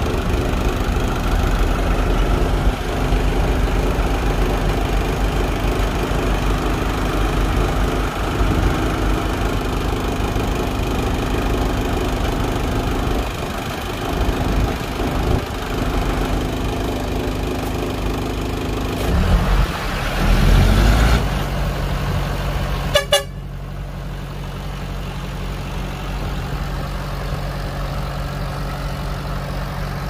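Heavy diesel engines of a bulldozer and dump truck running under load, with a louder swell about twenty seconds in. A sharp crackle follows, then a quieter, steadier lower engine drone.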